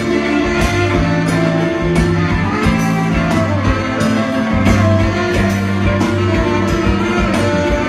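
Live band playing an instrumental passage: electric guitars and saxophones over a steady bass line, with regular drum kit hits.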